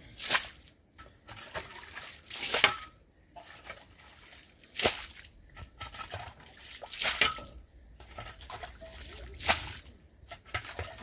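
A long-handled shovel scraping and pushing muddy standing water across a flooded stone floor: a wet splashing stroke about every two and a half seconds, with sloshing and dripping between the strokes.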